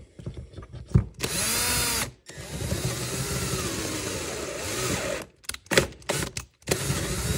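Cordless drill boring a cross-pin hole through a steel gas block and AR barrel, run in several stretches with its motor pitch rising and falling under load. Between the stretches it is stopped and started in short trigger blips as the bit binds near breakthrough, and there are a few knocks as the bit goes back into the hole at the start.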